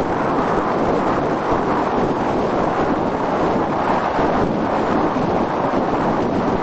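Wind blowing across the microphone: a loud, steady rushing noise.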